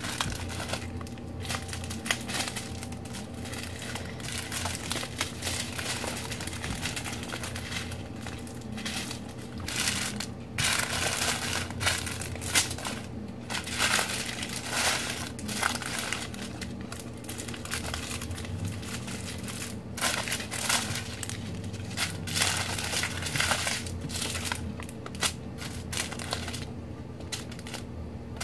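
Small plastic bags of diamond-painting drills being handled: crinkling plastic with scattered small clicks, busiest about halfway through.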